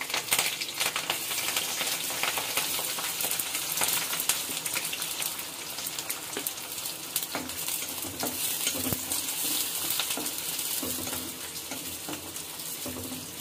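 Chopped garlic, green chillies and onion sizzling in hot oil in an iron kadhai, with a steady frying hiss and many small clicks and scrapes as the spatula stirs them.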